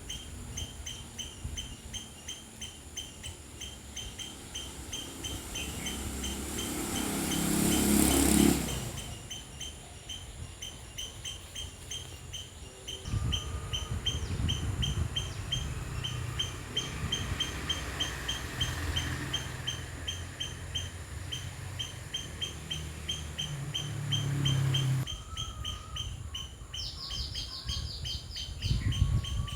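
Outdoor ambience: insects chirping in an even, rapid rhythm throughout. A passing vehicle grows louder to a peak about eight seconds in and then falls away, a lower engine rumble follows through the middle, and near the end a bird gives a short, rapid trill.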